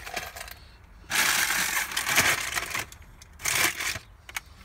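Loose pennies rattling and clinking together in two bursts: a longer one about a second in and a shorter one near the end.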